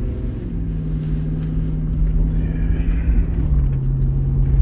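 Car cabin noise while driving: a low road rumble under a steady engine hum that drops in pitch about three and a half seconds in.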